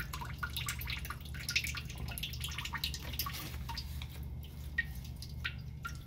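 Water dripping from a loosened brass compression fitting on a copper refrigerator water line into a stainless steel bowl, in quick, irregular drips over a low steady hum: the water left in the line draining out after the supply has been shut off.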